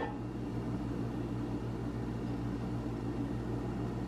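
Steady low machine hum with a light hiss, even throughout, with no distinct events.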